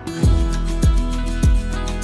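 Background music with a steady beat: a deep kick drum about every two-thirds of a second under held notes.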